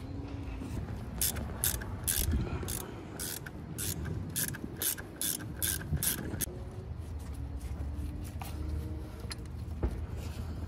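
Ratchet wrench clicking in quick repeated strokes, about three a second, as a bolt is turned on the engine; the clicking stops about six and a half seconds in.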